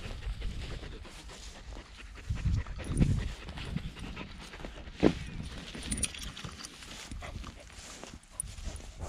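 American Staffordshire Terrier panting, with low thumps and bumps of movement; the loudest is a sharp knock about five seconds in.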